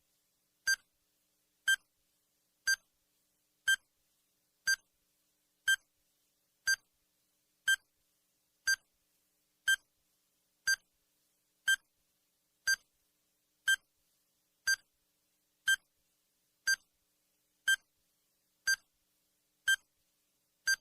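Countdown timer sound effect beeping once a second: short, identical, high-pitched electronic beeps with silence between them.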